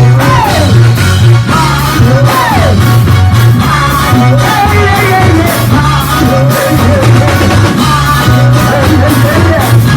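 Music with voices singing over a pulsing bass line and drum beats.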